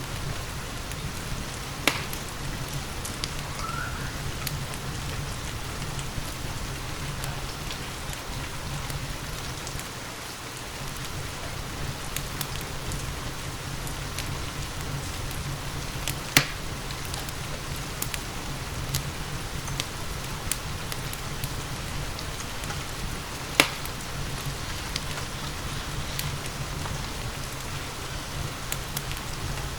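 Steady rain with a fireplace fire burning, and a few sharp pops from the burning wood: three louder ones about 2 s, 16 s and 23 s in.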